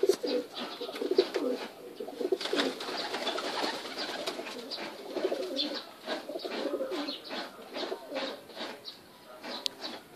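Several domestic pigeons cooing, their low calls overlapping continuously, with scattered sharp clicks among them.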